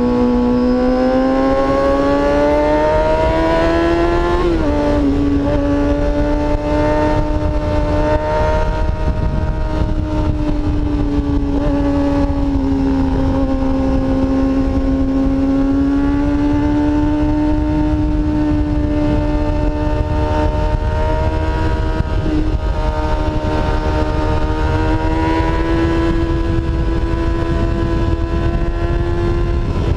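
Kawasaki Ninja sport bike engine running at high revs while riding. Its pitch climbs and then drops sharply about four seconds in, like a gear change, then rises and falls gently with the throttle, over a steady low rush of wind.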